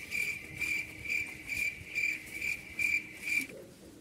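Cricket chirping: a high, even trill pulsed about twice a second that cuts off abruptly about three and a half seconds in, like an edited-in comic 'crickets' sound effect.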